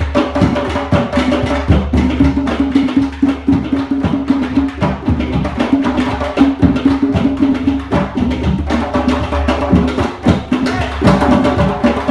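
Percussion-led music: a dense run of rapid hand-percussion strikes over steady held tones.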